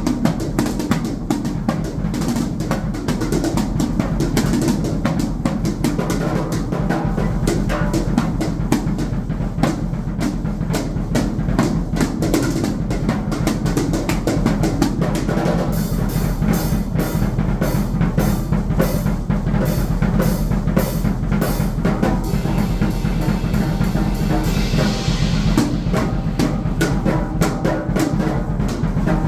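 Drum kit played without pause: rapid snare and bass-drum hits. From about halfway, a run of evenly spaced bright cymbal hits, then a short cymbal wash.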